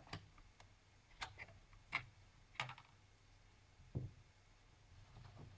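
Sparse light clicks and taps of small plastic laptop parts and connectors being handled during disassembly, with a duller knock about four seconds in.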